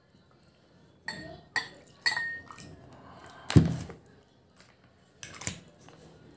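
Glass whisky bottle and drinking glasses clinking a few times with short ringing tones, then a heavy knock about halfway through as the bottle is set down on the table, the loudest sound, and another knock near the end.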